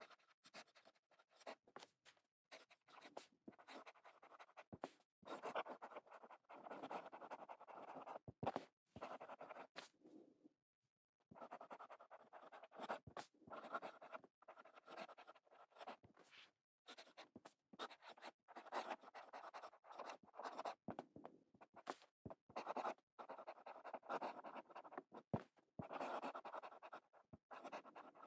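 Fountain pen writing on notepad paper: the Cross Townsend's 18K gold medium nib scratches faintly through runs of cursive strokes with short pauses and small ticks where the nib lifts and touches down. The reviewer finds it a smooth, wide nib that is a little squeaky and overpolished.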